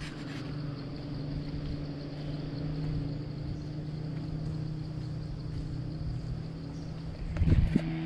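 A small engine running at a steady speed with a rough low rumble under it, and a brief louder burst of rumble about seven and a half seconds in.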